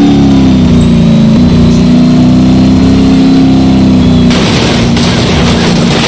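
Tank engine sound effect: a heavy engine running with a steady low drone. A harsher rushing noise joins it about four seconds in.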